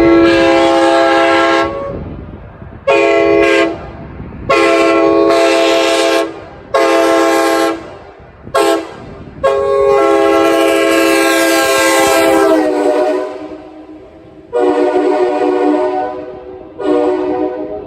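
Nathan K5LA five-chime air horn, a 1990s parts build, blown in a series of about eight blasts, short and long, the longest about three seconds near the middle, each sounding a chord of several notes at once. Echoing tails trail off after the blasts.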